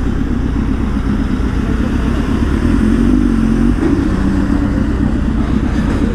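Several motorcycle engines idling together, Harley-Davidson V-twin cruisers among them, with a steady low hum and no revving.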